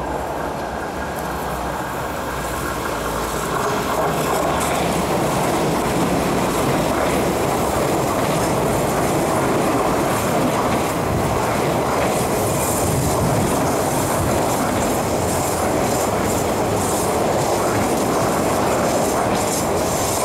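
East Rail Line electric multiple-unit train running past on curved track: a steady rumble of wheels on the rails that grows louder about four seconds in and holds. Flickering high-pitched wheel squeal and rail clicks come through in the second half as the cars go round the curve.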